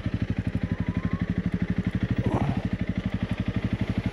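Honda CRF 300 Rally's single-cylinder four-stroke engine running at low revs, a steady, even putter of about a dozen pulses a second.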